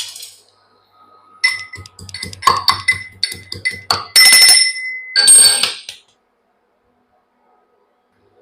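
Metal kitchen utensils clinking: a quick run of sharp strikes, each ringing brightly, then two longer rings.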